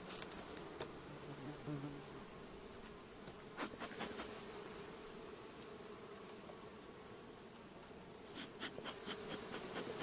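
Honeybee colony humming over its open hive, a steady drone, from a colony built up to two boxes. A few light clicks and knocks come from the hive being handled, near the start, about four seconds in and again near the end.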